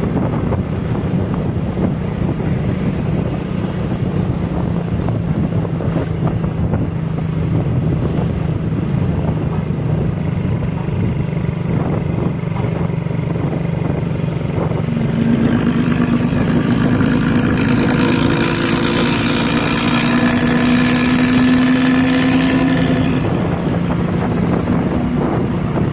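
Steady engine and road noise, then from about fifteen seconds in an intercity bus's 'ngorok' (snoring) exhaust drones loudly for about eight seconds, one raspy note with many overtones rising slightly in pitch as the bus pulls away, before it stops.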